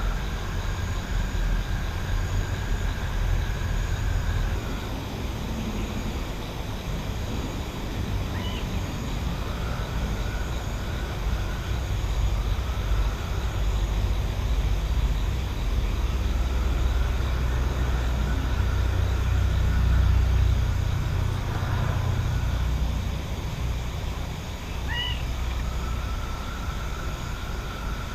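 Countryside night ambience: a steady, wavering low rumble, with a thin high trill that fades in and out over a few seconds at a time. Two brief chirps come through, about eight seconds in and again near the end.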